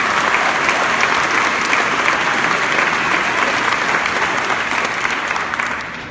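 Crowd applauding and cheering in response to a speech line, steady and then dying away near the end.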